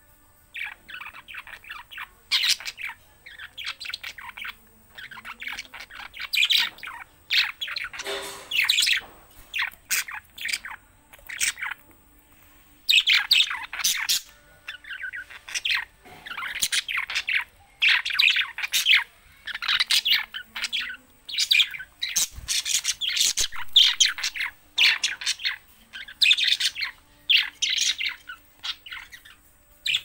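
Caged budgerigars chirping and chattering: quick runs of short, high chirps that come in clusters with brief gaps between them.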